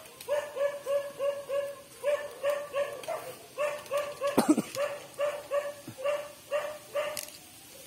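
An animal calling in a rapid series of short, evenly pitched yelping notes, about four a second, in runs with brief breaks. One louder falling cry comes a little after halfway, and the calls stop shortly before the end.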